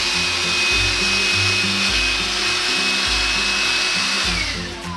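Kitfort KT-515-2 cordless stick vacuum running with a steady high whine, then switched off about four seconds in, its motor winding down in a falling whine. Background music plays underneath.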